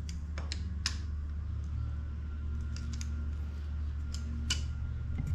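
Suzuki DR650's single-cylinder engine idling with a steady low drone, freshly refilled with oil and left running to circulate it, with scattered sharp ticks and clicks over it.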